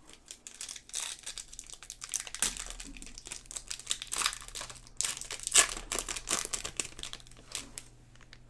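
Foil wrapper of a Topps Chrome trading card pack crinkling in the hands as it is torn open, a run of sharp crackles with the loudest a little past halfway.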